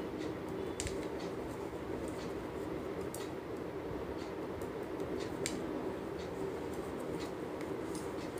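Metal crochet hook working thick yarn: light, irregular clicks and scratchy rustles as stitches are pulled through, over a steady low hum.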